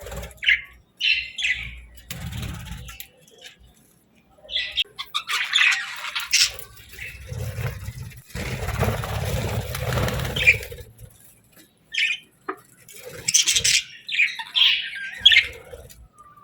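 Budgerigars chirping and squawking in short bursts, with a longer stretch of rustling, scuffling noise partway through.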